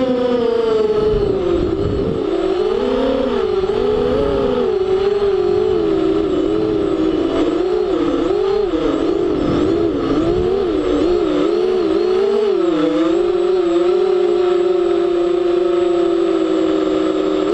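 FPV drone's electric motors and propellers whining, the pitch dipping about half a second in, wavering up and down with the throttle through the middle, then holding fairly steady near the end.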